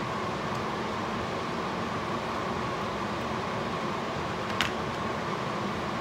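Steady fan-like hum of a kitchen, with one sharp knock of the wooden spoon against the rim of the stainless-steel sauce pot about four and a half seconds in.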